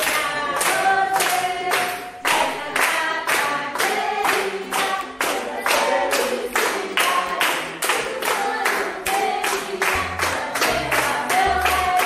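A group of people singing a birthday song together while clapping in a steady rhythm, about three claps a second.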